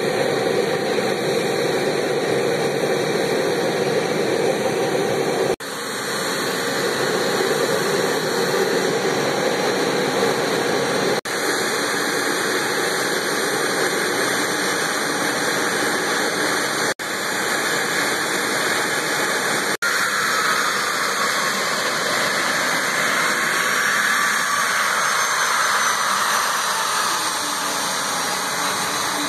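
Bombardier CRJ regional jet's two rear-mounted turbofan engines running steadily as the jet taxis out, a loud, even rush with a faint whine that rises and falls about two-thirds of the way through. The sound cuts out briefly four times.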